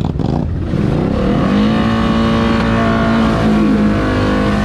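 ATV engine revving up about a second in and held at high revs.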